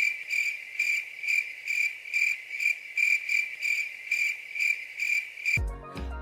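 Cricket chirping sound effect, a steady high chirp repeating about twice a second, the stock comedy cue for an awkward silence. It cuts off abruptly shortly before the end.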